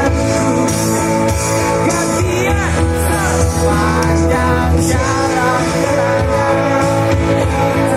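Pop-rock band music with a singer: a sung melody over bass, guitar and drums.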